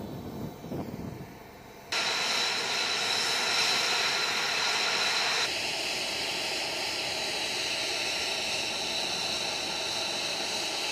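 Jet engine of an F-35A (a Pratt & Whitney F135 turbofan) running at ground idle with a steady high-pitched whine, which comes in suddenly about two seconds in after a low rumble.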